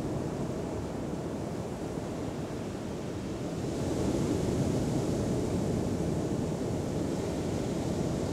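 Mediterranean surf washing on the shore, with wind rumbling on the microphone; the wash swells louder about four seconds in.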